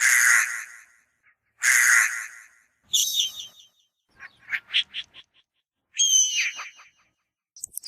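Gull calls: five separate loud cries with silent gaps between them. One is a quick run of short notes, and the last one slides down in pitch.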